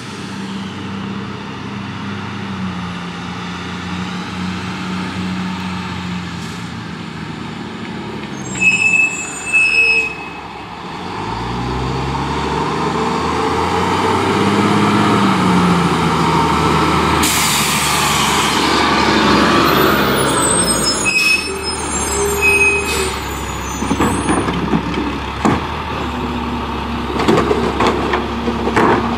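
A rear-load garbage truck approaches and pulls up, its engine running and rising and falling in pitch. It gives loud air-brake hisses and a few brief brake squeals as it stops. Near the end there are clanks as a trash cart is tipped at the rear hopper.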